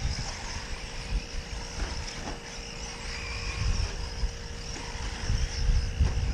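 Radio-controlled 4x4 short course trucks racing on a dirt track: a steady high whine of their motors that wavers with throttle, over an irregular low rumble.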